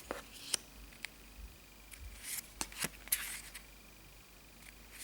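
Thin photo cards being handled and sorted by hand: soft rustles and light clicks spaced over a few seconds, with a longer rustle about three seconds in.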